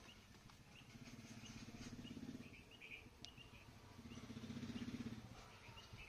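Faint outdoor background: scattered bird chirps and two low hums that swell and fade, about a second in and again about four seconds in.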